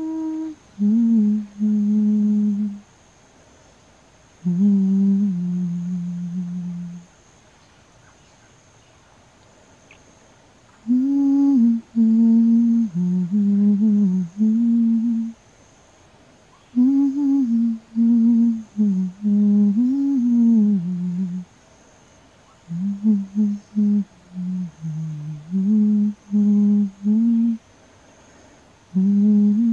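A person humming a slow lullaby tune in short phrases separated by pauses of a few seconds, to lull a baby woolly monkey to sleep.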